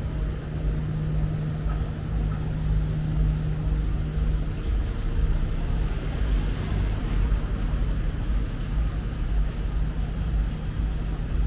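Street ambience with a low rumble and the steady hum of a nearby vehicle engine, which fades about four and a half seconds in.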